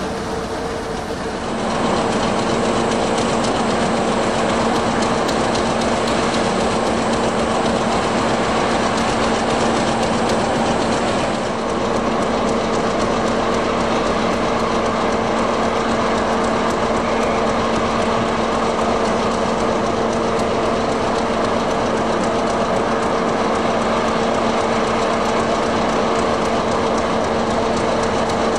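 Diesel locomotive engine running under power, a steady drone with a humming tone, mixed with the noise of the train on the rails; it grows louder about two seconds in.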